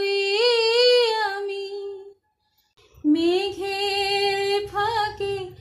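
A woman singing a Bengali song unaccompanied, holding and bending a long note that fades out about two seconds in. After a brief silent gap, her voice comes back about three seconds in.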